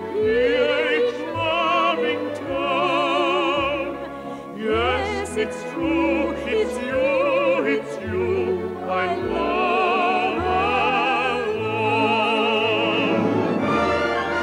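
Operatic singing with strong vibrato over an orchestral accompaniment.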